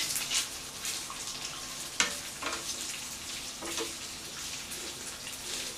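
Pork belly sizzling steadily as it grills, with a sharp click about two seconds in and a few lighter taps.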